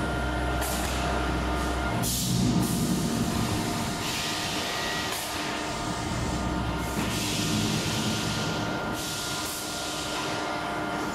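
Dry-mix mortar production line machinery running: a steady hum and rumble with several held tones, and a hiss that comes and goes every second or two.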